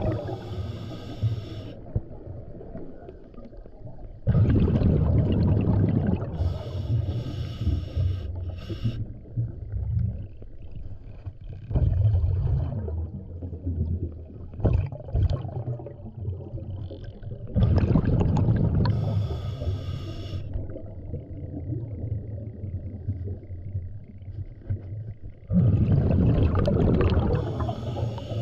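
Scuba regulator breathing heard underwater: the diver's exhaled bubbles rush out in loud gurgling bursts three times, with hissing inhalations through the regulator in between.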